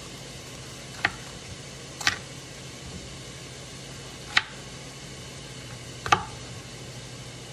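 Knife cutting into a green bell pepper on a cutting board: four separate sharp knocks as the blade slits the pepper and meets the board.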